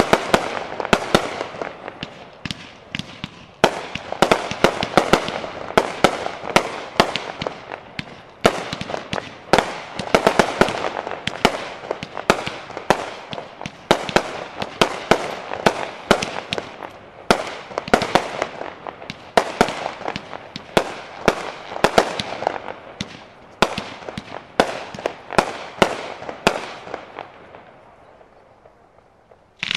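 Aerial fireworks in a finale barrage: a rapid, continuous volley of sharp bangs from shells bursting overhead, thinning out and stopping near the end.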